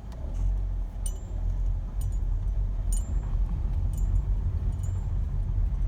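Low rumble of a 2003 Toyota Corolla moving, heard from inside the cabin, with light metallic clinks about once a second.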